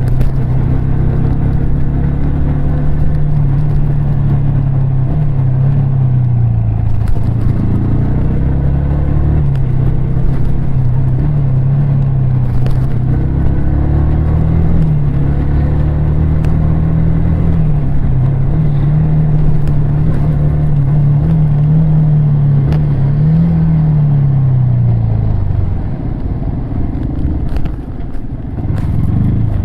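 Yamaha R15 V3's 155 cc single-cylinder four-stroke engine pulling under way, its note rising and falling repeatedly with throttle and gear changes. Near the end the engine drops off and quietens as the bike slows, then picks up again.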